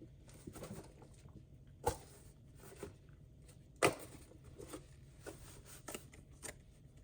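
Light clicks and taps of kitchen handling while garlic powder is measured out over the chicken wings, with two sharper knocks about two and four seconds in.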